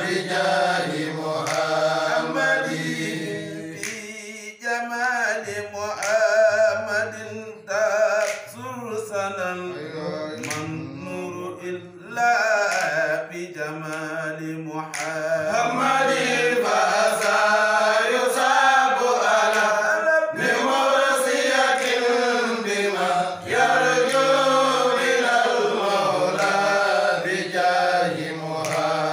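Men chanting an Arabic religious praise poem in long, gliding melodic lines, unaccompanied.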